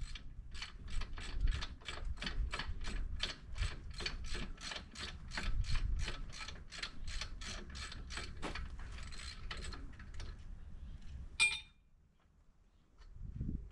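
A ratchet clicking steadily, about four clicks a second, as a fastener is turned; the clicking stops about ten seconds in. A single sharp metallic clink follows shortly after.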